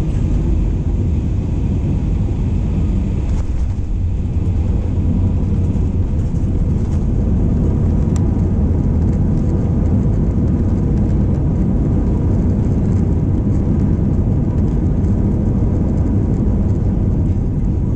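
Steady low rumble of cabin noise inside a jet airliner: engines and airflow.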